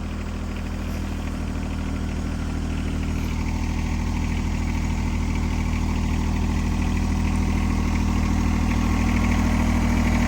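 John Deere 1026R compact tractor's diesel engine running steadily, growing gradually louder.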